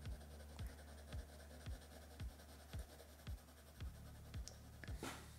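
Pencil shading strokes scratching on paper, over quiet background music with a soft steady beat of about two kicks a second.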